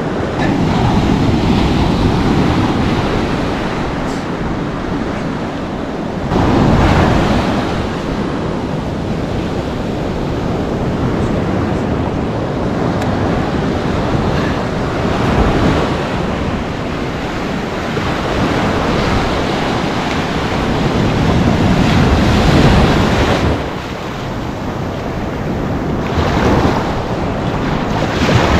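Ocean surf washing onto the shore, with wind on the microphone; the wash swells louder several times as waves break.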